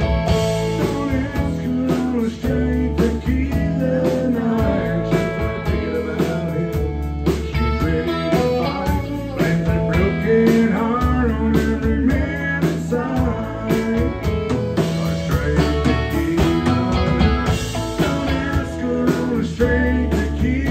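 Live country band playing: fiddle, acoustic and electric guitars, bass guitar and drums, with a male lead vocal.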